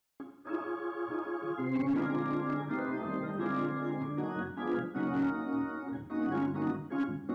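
Organ music starting suddenly, playing held chords; from about two seconds in, short percussive strokes join on the beat.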